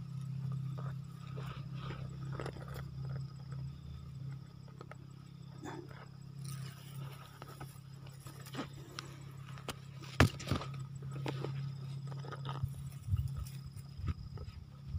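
Scattered small scrapes and clicks over a steady low hum, with one sharp knock about ten seconds in: the sounds of a hooked softshell turtle being handled at the water's edge.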